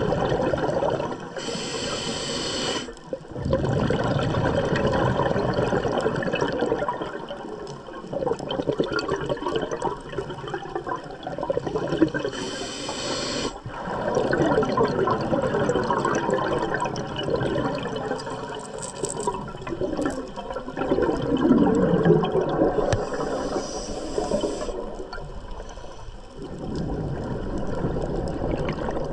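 Scuba diver breathing through a regulator underwater: three short hissing inhalations about ten seconds apart, each followed by a long gurgle of exhaled bubbles.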